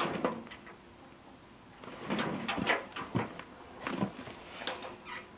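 Short bursts of clattering and rustling as a steel tape measure is run out and handled over corrugated Galvalume metal panels. The busiest stretch is about two to three seconds in.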